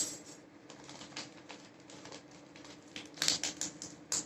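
Crinkly rustling and crackling of a small tape-wrapped packet being handled and opened, with a denser flurry of crackles about three seconds in, over a faint steady hum.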